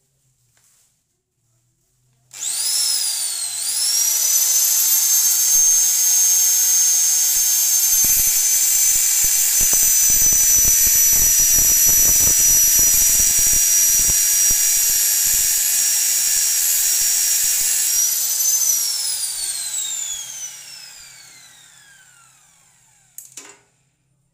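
Electric grinder with an abrasive cutting disc cutting through metal: it starts up about two seconds in, its whine dips as the disc bites, holds steady through the cut for about fifteen seconds, then is switched off and winds down in a long falling whine. A short click comes just before it dies away.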